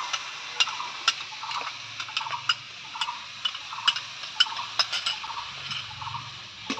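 Spiced masala frying in a kadai, sizzling steadily as sour yogurt and tomato paste is poured in, with irregular sharp ticks and pops through it.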